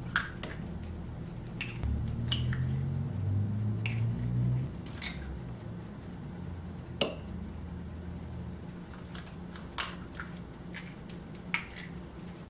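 Eggs cracked one after another against a glass mixing bowl of chocolate batter: sharp taps and cracks of shell, scattered a second or more apart.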